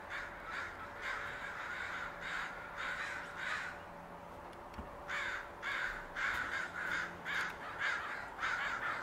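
A large flock of crows cawing, many short overlapping caws several a second, with a lull of about a second midway before the cawing picks up again, louder.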